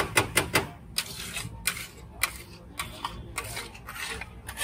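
Steel spatula and pav bhaji masher striking and scraping on a large flat tawa griddle: quick metallic clacks, four in fast succession at the start, then irregular strikes.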